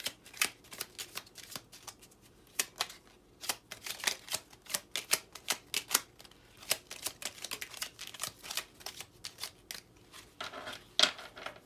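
A deck of tarot cards being shuffled by hand: a fast, uneven run of sharp card clicks and flicks, thicker near the end.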